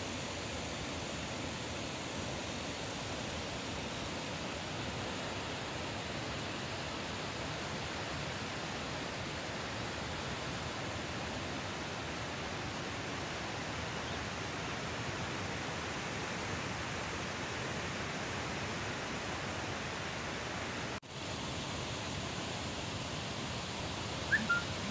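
Steady rushing of floodwater discharged through a hydroelectric reservoir's open gates, an even, unbroken wash of water noise. It drops out for an instant a few seconds before the end, and a short high-pitched sound rises just before the end.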